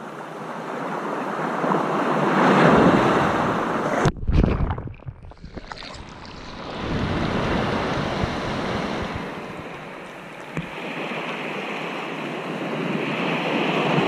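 Sea waves washing in, a hissing surf that swells and fades three times in slow surges. About four seconds in there is a sudden low rumble while the hiss briefly drops away.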